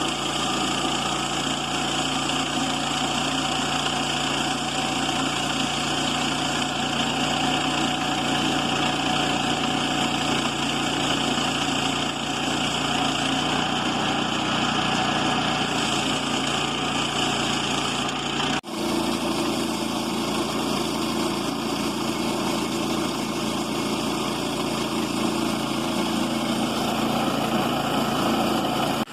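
Small gas engine of a Woodland Mills portable bandsaw sawmill running steadily at speed, with a momentary dropout about two-thirds of the way through.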